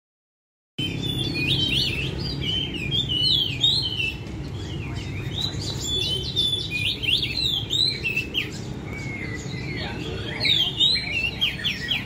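Several caged songbirds calling and singing at once, many short whistled and chirped notes overlapping, some sliding up or down in pitch, over a low steady hum.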